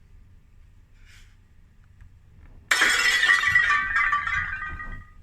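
Cartoon sound effect of glass shattering: a sudden crash about two and a half seconds in, followed by ringing, tinkling pieces that fade over about two seconds.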